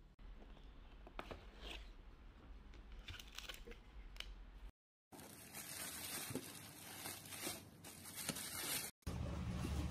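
Hands handling packaging: plastic and bubble wrap rustling and crinkling, with scattered small clicks and taps. The sound cuts out briefly about halfway.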